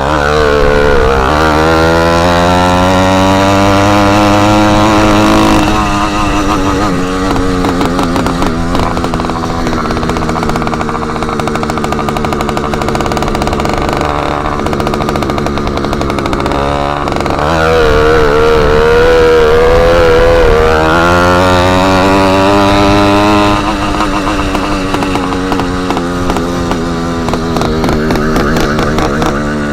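Motorized bicycle's small engine running loud with its exhaust tip removed, so the exhaust is open. It revs up over the first five seconds, holds at a choppy cruise, revs up again a little past halfway and then eases back off.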